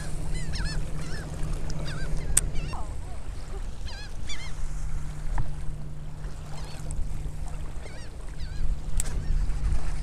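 A flock of seabirds calling again and again in short arched cries as they work the water, feeding over a school of fish, over a low steady hum and wind-and-water noise.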